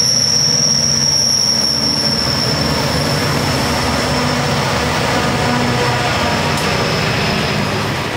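EMD SD40T-2 diesel locomotive with its 16-cylinder two-stroke engine rumbling as it leads a freight train past, with the rolling noise of the wheels on the rails. A steady high-pitched wheel squeal runs over it and fades out near the end.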